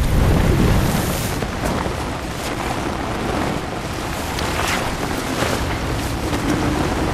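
Storm at sea: heavy wind and rain with waves washing against an inflatable life raft, a loud, steady rush of noise with sharper surges now and then.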